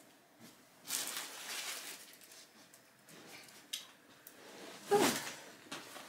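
Soft rustling and handling noises with a sharp tick near the middle, then a brief pitched, voice-like sound about five seconds in.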